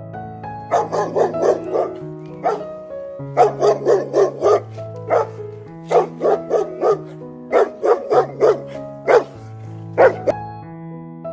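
A dog barking in quick runs of four to six barks with single barks between, over soft background piano music.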